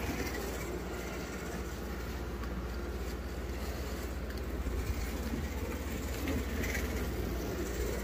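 1/24-scale slot car, a vintage Ferrari 312 F1 chassis with a new electric motor, running laps on a plastic slot track: a steady whir from the small motor with rattling from the wheels and guide in the slot, over a low steady hum.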